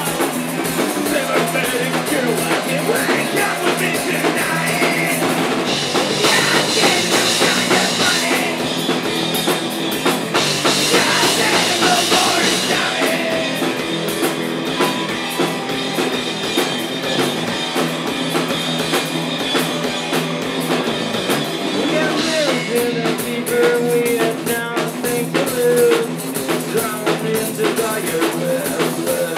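Live rock band playing an instrumental stretch, drum kit driving it along under a dense wall of amplified instruments.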